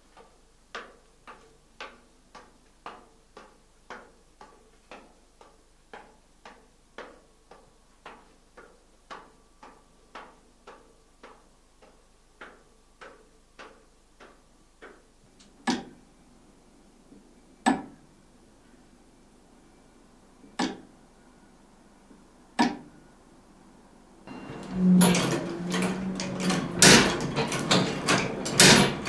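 A clock ticking evenly, about three ticks every two seconds, until the ticking stops about halfway through. A few louder single clicks follow at uneven gaps. Near the end a loud, dense clatter of mechanical knocks begins.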